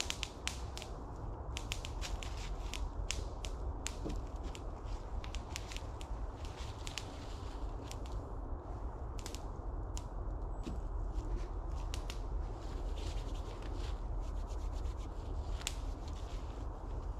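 Large groundsheet tarp rustling and crackling as it is handled and shaken out, giving many irregular sharp crinkles over a steady low rumble.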